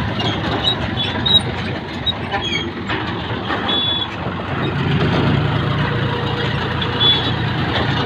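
An engine running steadily, with short high-pitched beeps or chirps now and then.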